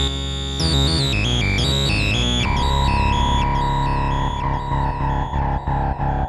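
Behringer TD-3-MO synthesizer played through effects: a held note, then a quick run of stepped notes, then a steady higher tone chopped into a rhythmic pulse of about three beats a second.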